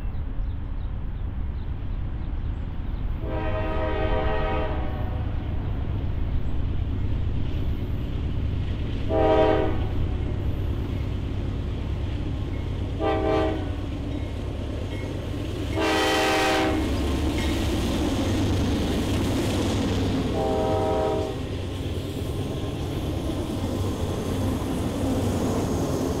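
Diesel freight locomotive's air horn sounding for a grade crossing: five chord blasts, the first long and the fourth the loudest. A steady low rumble of the approaching train runs beneath.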